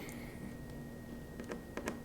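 A few faint, sharp little clicks, mostly past the middle, from a Phillips screwdriver working the small screws on an iPhone 4's internals, over a faint steady hum.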